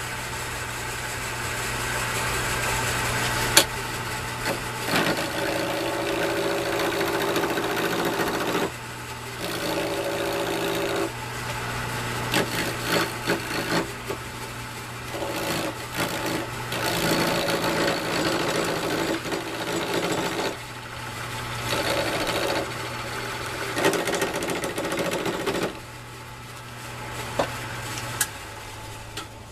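Small wood lathe running with a steady motor hum while a hand-held turning tool cuts cocobolo pen blanks on a mandrel. The cutting comes in passes of a few seconds with short breaks and stops a few seconds before the end.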